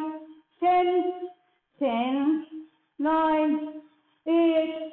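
A woman counting aloud in a slow, drawn-out sing-song voice, one held number about every second and a bit, about four counts.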